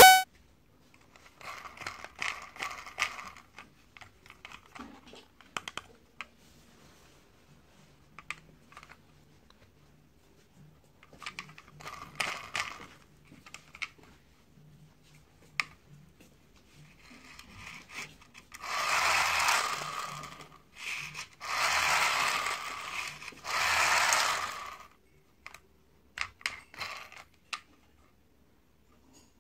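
Small plastic toy train being handled and turned over in the hands: scattered plastic clicks, taps and rattles, with a sharp click right at the start and three louder scraping, rattling stretches of a second or two each near the end.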